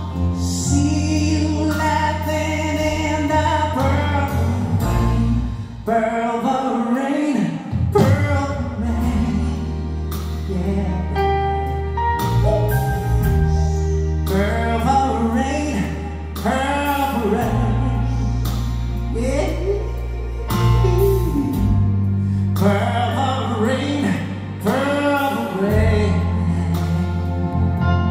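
Live rock performance of a slow song: a male lead singer over a rock band with an orchestra of strings and saxophones, the chords and bass held and changing every few seconds.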